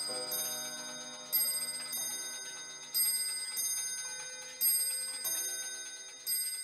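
Bell-like chimes: a high struck note about every second and a half, with lower notes sounding between them, each ringing out and fading.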